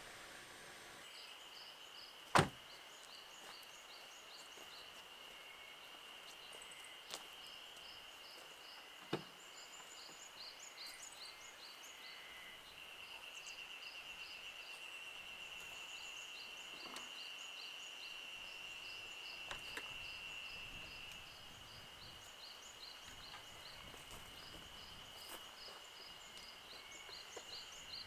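Jeep Wrangler doors shutting: a loud thunk about two seconds in and another near nine seconds, with a lighter knock between. Under them runs a continuous high insect drone with rapid repeated chirping.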